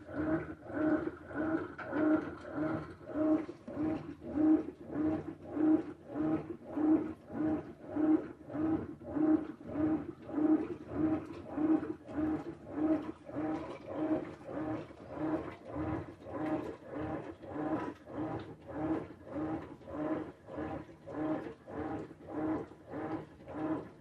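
Whirlpool Xpert System Smart Load top-loading washer agitating a load in water: the motor hums in even pulses about twice a second as the agitator swings back and forth, with water sloshing.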